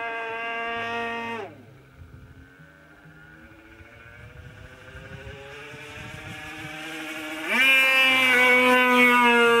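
Super Tigre G-51 two-stroke glow engine of an RC Super Chipmunk model plane running at a steady high pitch, then throttled back sharply about a second and a half in to a faint low idle, and opened up again with a quick rising pitch near the end, running loud and steady.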